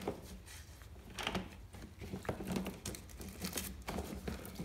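Motorcycle roller chain clicking and rattling as it is worked through a tub of diesel and motor oil and brushed clean, with irregular small clinks, scrapes and wet splashes.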